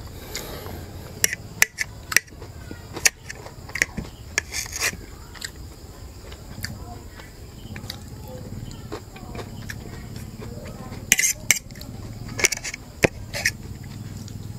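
Metal fork clinking and scraping against a ceramic plate while eating, in scattered sharp clicks that come in two clusters, one in the first few seconds and one a little after the middle.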